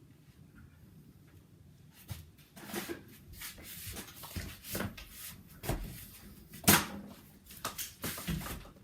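Quiet at first, then a run of scattered knocks, clicks and shuffling, with one sharp, loud knock about two-thirds of the way through.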